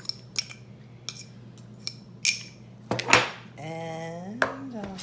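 A kitchen utensil clinks lightly against a bowl several times, then makes a short scrape about three seconds in, as ingredients go into the salad bowl.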